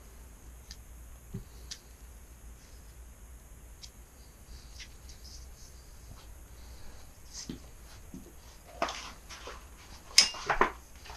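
Hand work on a door screen frame: sparse faint ticks, then a cluster of louder sharp clicks and scratchy scrapes near the end.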